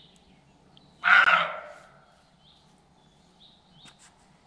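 A roe deer giving a single harsh, dog-like bark about a second in: the alarm call of a roe that has spotted an intruder in its territory and is trying to drive him off. Faint short bird chirps repeat in the background.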